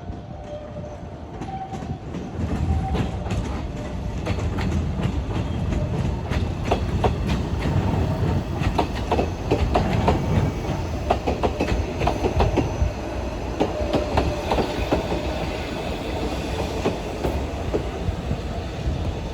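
Narrow-gauge Yokkaichi Asunarou Railway 260-series electric railcar running through a station, its wheels clattering with many quick clicks over rail joints and points. The clatter builds to its loudest in the middle and eases off near the end.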